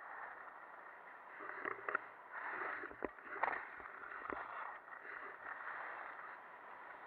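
Skis sliding and scraping over hard-packed snow as a steady hiss that swells and eases, with a few sharp knocks in the middle.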